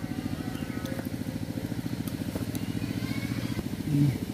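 An engine running steadily with a fast, even chugging beat.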